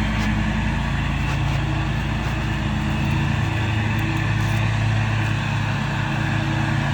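Lawn mower engine running steadily, an unbroken low drone.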